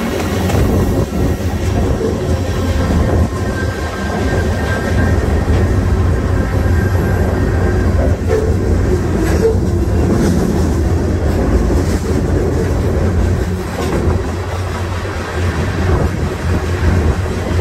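Freight train rolling along: a steady, loud rumble of steel wheels on rail, with a faint high wheel squeal between about three and six seconds in.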